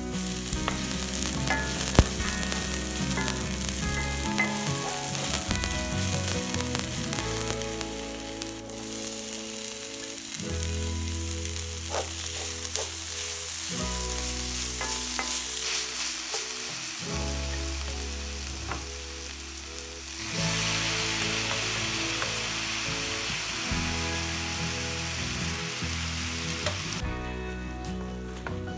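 Chopped spring onions, red peppers and then boiled potato pieces sizzling in olive oil in a cast-iron skillet, stirred with a wooden spoon with a few light taps and scrapes. The sizzle grows louder about two-thirds of the way through and eases off near the end.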